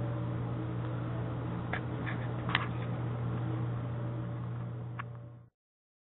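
Steady low hum of room noise, with a few light clicks, fading out to silence about five and a half seconds in.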